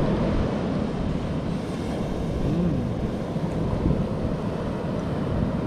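Wind buffeting the microphone, with beach surf rushing behind it.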